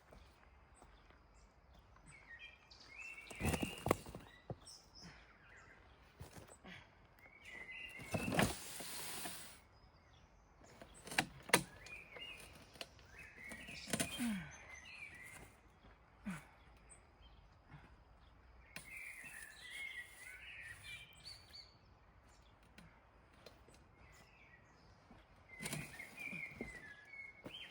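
Small birds chirping in short twittering phrases every few seconds over quiet outdoor background, with a few brief knocks and rustles in between.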